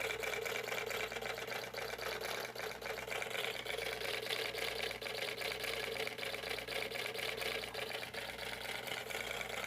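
Homemade miniature engine with small moving pistons running steadily at idle, making a fast, even mechanical clatter over a light hum.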